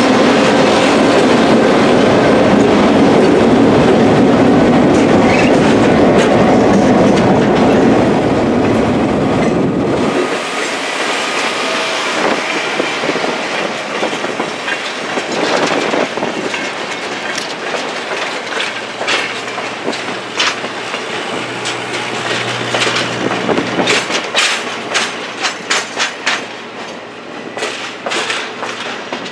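Diesel freight locomotives passing close by, their engines loud and heavy for about the first ten seconds. Then the train's cars roll past with the clickety-clack of steel wheels on the rails. The clicks become sharper and more distinct near the end as the passenger cars go by.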